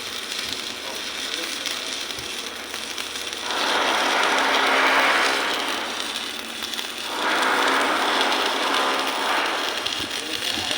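Electric welding arc crackling and hissing in two runs of a few seconds each. Each run starts suddenly: the first about a third of the way in, the second right after the first stops.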